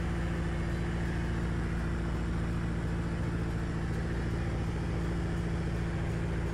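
CubCrafters Carbon Cub's piston engine and propeller droning steadily in flight, heard inside the cockpit.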